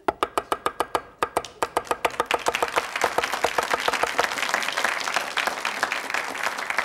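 Chinese cleaver rapidly mincing green onions on a wooden cutting board, sharp even chops at about seven a second. From about halfway through, studio audience applause joins in over the chopping.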